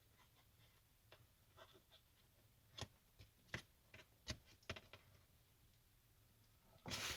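Near silence, broken by a few faint, short clicks of small parts such as wires and shrink tubing being handled. A louder rustling noise starts near the end.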